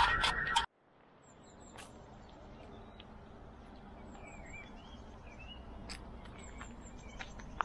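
A loud sustained sound cuts off abruptly under a second in. What follows is faint outdoor ambience with small birds chirping and a few sharp clicks scattered through it.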